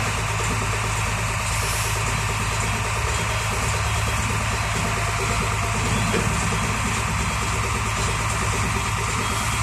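Hino tronton truck's diesel engine idling steadily.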